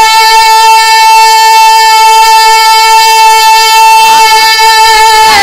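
A male naat reciter holding one long, steady high note over a microphone and PA.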